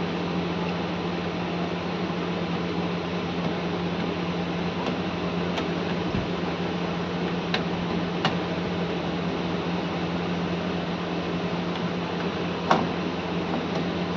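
Steady background hum and hiss, with a few light metallic clicks from a screwdriver working the screw terminals of a 24 V switch-mode power supply. The sharpest click comes near the end.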